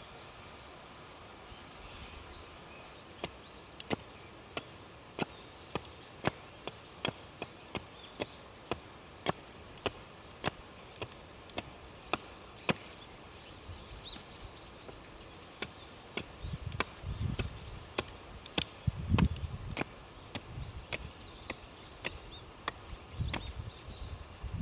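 Repeated sharp knocks of wood being chopped or split, evenly paced at roughly one to two strikes a second. About two-thirds of the way through, heavier dull thuds join in.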